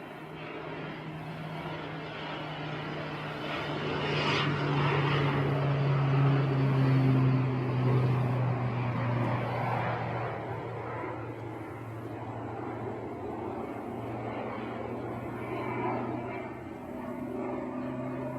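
Crop-dusting airplane's engine making a low pass: a steady drone that swells to its loudest about six to eight seconds in, drops slightly in pitch as the plane goes by, then eases off and starts building again near the end.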